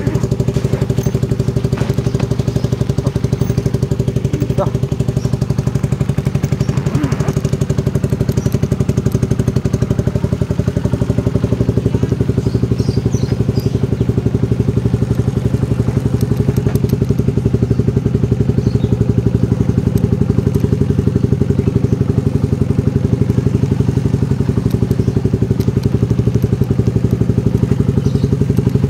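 Motorcycle engine running steadily, its firing pulses even and its pitch holding constant throughout, with no revving.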